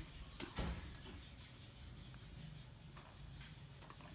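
Steady, high-pitched insect chorus droning without a break. A thump comes just over half a second in, followed by a few faint clicks.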